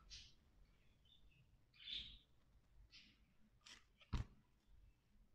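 Near silence, broken by a few faint short sounds and one sharp little click about four seconds in.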